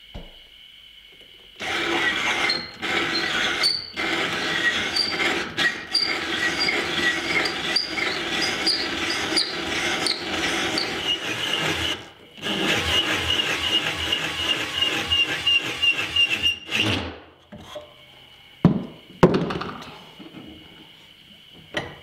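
Cordless drill spinning a rotary tenon cutter along a sweet chestnut pole, the blade shaving the wood to a taper. It runs in long spells with brief pauses and stops abruptly about 17 seconds in. Two sharp knocks follow.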